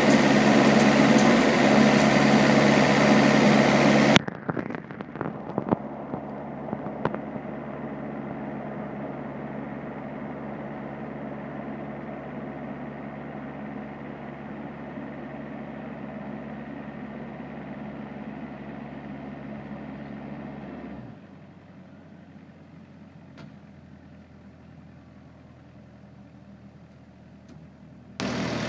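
Green Machine 636 compact street sweeper running loud and steady while its hopper is raised for emptying. About four seconds in, the sound drops abruptly to a quieter steady run, with a few clicks and knocks as the hopper is worked. Near the end it drops again to a faint hum.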